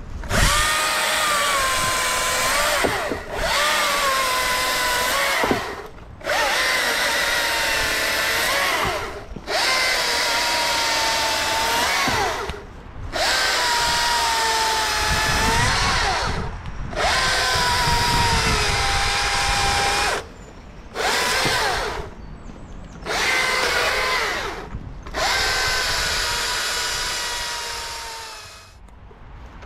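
STIHL MSA 220 C battery chainsaw's electric motor and chain running in about nine bursts of a few seconds each, with short pauses between them, as it cuts a fallen branch. The whine dips in pitch during each burst and rises again near its end.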